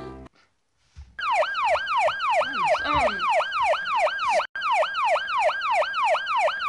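Emergency-vehicle siren in a fast yelp: a tone sweeping down in pitch over and over, about two and a half sweeps a second. It starts about a second in, after the music cuts off, and breaks off for an instant a little past the middle.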